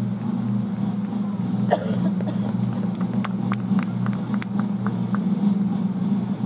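Steady low motor hum, with a string of faint clicks in the middle.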